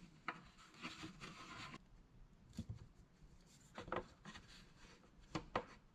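Faint scattered clicks and rubbing from hands working new 7/32 vacuum tubing and its plastic retaining tab on a truck's windshield washer line.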